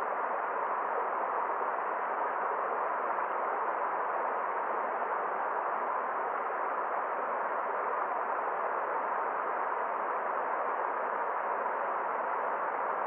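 Forest stream running water: a steady, even rush with no separate splashes or drips standing out.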